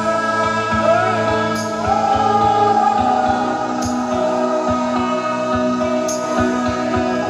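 Music with a sung melody over a beat, played loud through a truck-mounted stack of sound-system loudspeakers.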